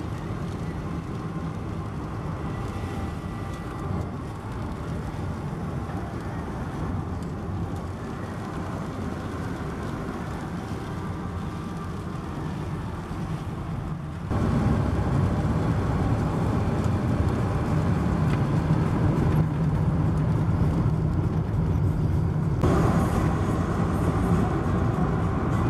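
Steady road and engine noise heard from inside a moving car, a low rumble that gets suddenly louder about halfway through.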